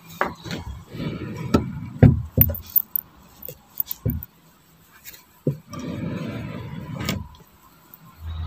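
Wardrobe doors and a drawer being handled, giving a string of sharp clicks and knocks, between two stretches of fabric rustling as folded headscarves are rummaged through.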